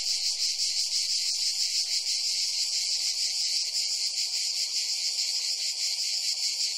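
A dense chorus of insects shrilling, steady and high-pitched with a fast flutter.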